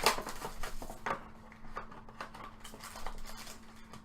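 Trading cards being handled and sorted through by hand: scattered light rustles, slides and small taps, the sharpest near the start and about a second in, over a faint steady hum.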